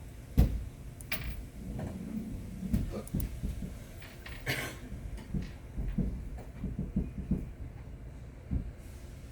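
A series of irregular metal knocks and clunks from a workpiece being handled and seated in a machine vise. The loudest is a sharp knock about half a second in, and there is a short scraping hiss about four and a half seconds in.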